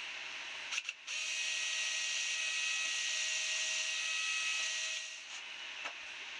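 Cordless drill running steadily as it bores a hole into a block of HDU sign board, a whine with a short break just under a second in, stopping about five seconds in.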